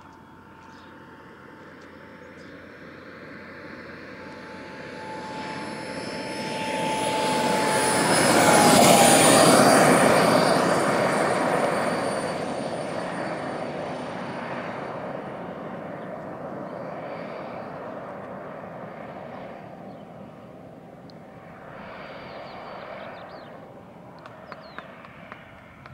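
Boomerang XL radio-controlled turbine jet flying past: the turbine's high whine and rush build up, peak about nine seconds in as the whine drops in pitch while it goes by, then slowly fade. A fainter, shorter swell comes near the end.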